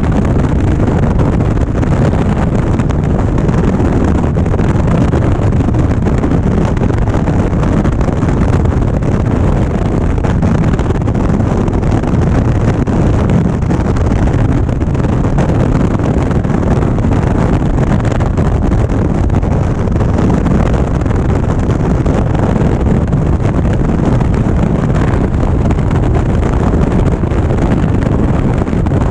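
Indian Springfield motorcycle riding at a steady speed: wind rushing over the microphone, with engine and road noise beneath it.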